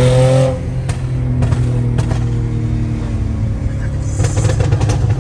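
Modified Mercedes-Benz E350's petrol engine revved, dropping back toward idle about half a second in. Its aftermarket exhaust pops and crackles on the overrun with several sharp cracks, a cluster of them near the end.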